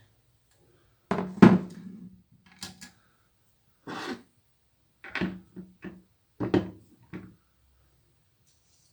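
A string of knocks and clunks of objects being handled and set down on a workbench, the loudest about a second in, followed by several quieter taps and clunks over the next six seconds.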